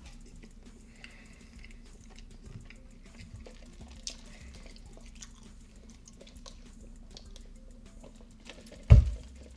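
Close-up chewing and wet mouth sounds: soft smacks and small clicks, low in level. Near the end comes a single short, loud low thump.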